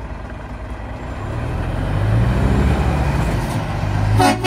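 Scania articulated tipper lorry's diesel engine pulling away, its low rumble building and getting louder from about a second in. A short toot, like a horn, near the end.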